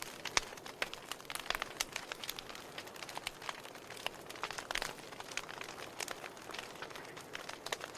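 Wood fire burning in a fireplace, crackling: many irregular sharp pops and snaps of varying loudness over a soft steady hiss of flame.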